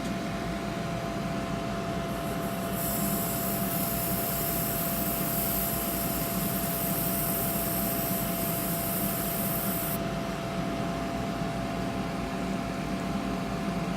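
Dental air-abrasion (sandblasting) unit spraying abrasive into the inside of an e.max ceramic crown: a steady high hiss that starts about three seconds in and cuts off about ten seconds in, over a steady machine hum.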